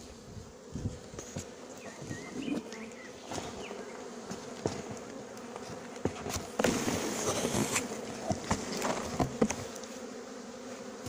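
Honeybees buzzing as a steady, dense hum of many bees. Over it come rustling and sharp knocks of things being handled, loudest between about six and eight seconds in.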